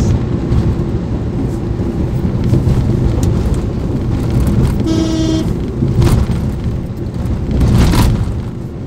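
Steady road and engine rumble of a car driving, heard from inside, with a short car-horn toot about five seconds in, lasting about half a second. Two brief rushes of noise follow later.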